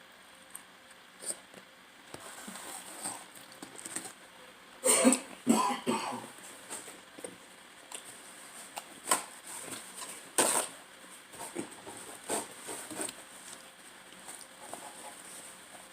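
A person eating pizza: mouth and chewing smacks, with a loud burst of coughing about five seconds in.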